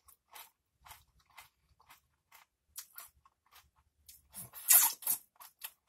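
Close-miked chewing of Doritos tortilla chips: a string of short crisp crunches, with a louder run of crunching about four and a half seconds in.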